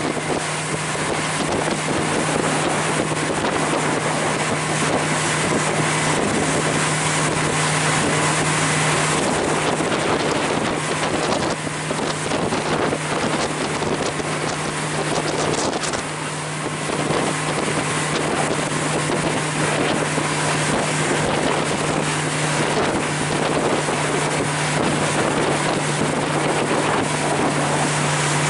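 Motorboat under way, heard from on board: a steady engine drone under a constant rush of wind on the microphone and water noise.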